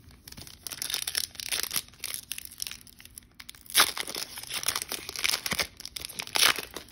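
Foil trading-card pack wrapper crinkling and tearing as it is handled and opened, with a couple of sharper rips, one about four seconds in and one near the end.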